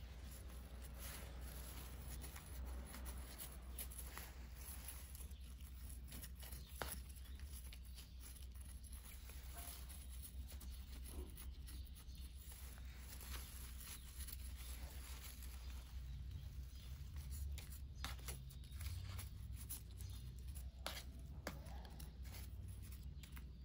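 Soft rustling and scratching as fingers work potting soil and brush the leaves of a potted plant, in scattered small clicks, over a steady low hum.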